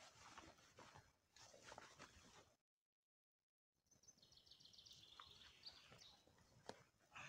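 Faint rustling of clothing as a jacket is handled. About a second of dead silence breaks it, then a small bird sings a short trill of high notes falling in steps.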